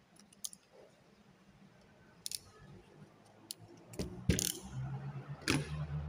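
Electrical wires being handled with gloved hands: scattered light clicks and rustles, growing louder with several sharper clicks and a dull knock in the last two seconds.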